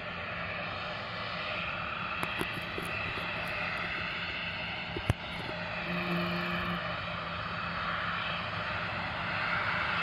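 Lion Air airliner's engines running steadily as it readies for take-off, a rushing whine that slowly grows louder. A sharp click comes about five seconds in.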